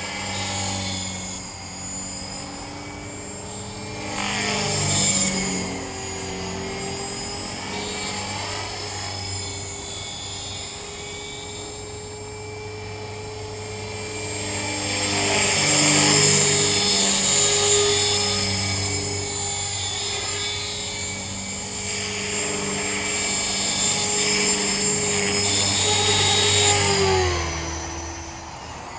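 Align T-Rex 450 electric RC helicopter in flight: a whine from the brushless motor and rotors with a high squeal from a bad main bearing. It grows louder as the helicopter passes close, about 5 seconds in, through the middle and again near the end, and the pitch drops as it moves away.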